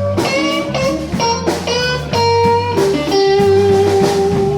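Slow minor blues played by a live band: an electric guitar fills between vocal lines over bass and drums, ending on one long held note.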